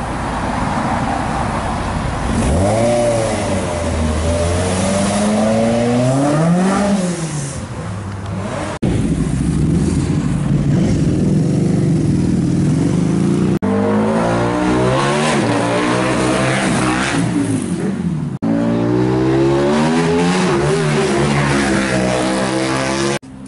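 A red open-top roadster and a sports motorbike accelerating hard away one after another, engines revving up and falling back through the gears. The sound breaks off abruptly a few times where short clips are joined.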